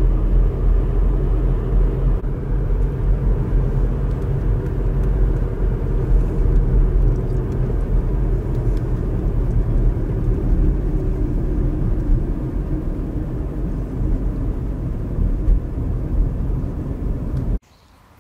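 Car driving on a road: a steady low rumble of engine and tyre noise. It cuts off abruptly near the end, leaving a much quieter background.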